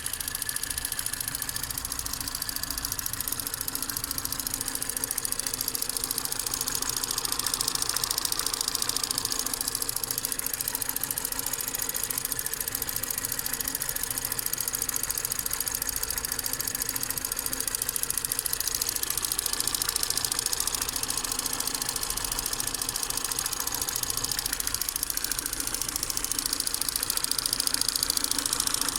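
Ford Fusion EcoBoost engine running steadily with a fast, even ticking or knocking over its hum: the strange noise it has been making for some time, whose cause the owner does not know.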